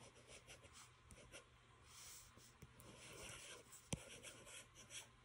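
Faint scratching and tapping of a stylus's fine replacement tip on a tablet's glass screen during handwriting, with one sharper tap about four seconds in.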